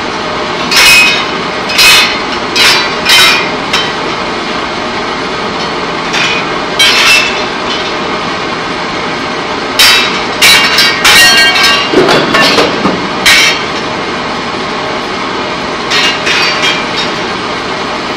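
Steady drone of pipe-coating plant machinery with a faint steady hum, broken by sharp metallic clangs that ring briefly: a few about a second in, more around seven seconds, a dense run from about ten to thirteen seconds, and a few near the end.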